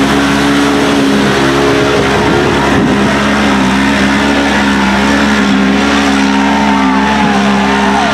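Polaris XP 900 twin-cylinder engine of a rock buggy running flat out, held at near-steady high revs.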